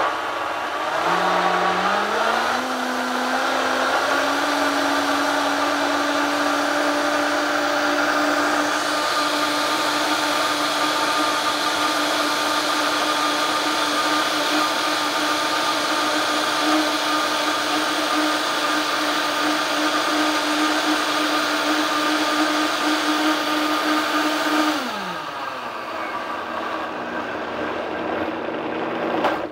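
Vitamix blender motor speeding up about a second in and running steadily at high speed, blending a thick egg-white pudding mixture. About 25 seconds in it winds down to a lower speed, then shuts off at the end.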